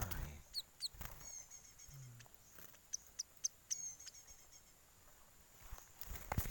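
Small birds giving short, high chirps in several quick runs, with a few sharp knocks from handling.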